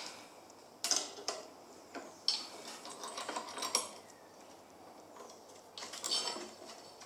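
Light metallic clicks and clinks from small metal parts and hand tools being handled on a workbench, a few separate knocks spread over several seconds.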